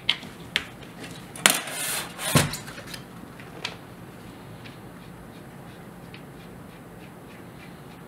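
Small stainless-steel ring-holder parts knocking and clinking against each other as they are lifted off a base and fitted into a metal handle: a few sharp clicks, a short scrape and a knock in the first three seconds or so, then only faint ticks.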